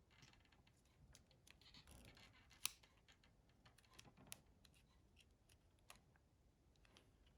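Faint clicks and light scraping of a Nokia 6060's plastic housing parts being handled and fitted together by hand, with one sharper click about two and a half seconds in and another a little under two seconds later.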